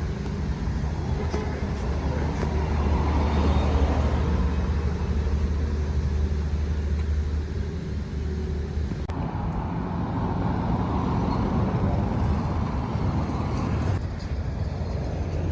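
Road traffic noise: motor vehicles running along a street, a steady low rumble, with the sound changing abruptly twice.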